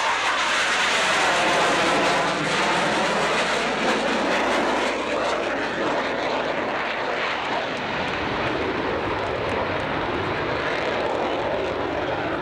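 Jet noise from F/A-18 Hornet jets flying past, loudest in the first two seconds and then slowly easing off.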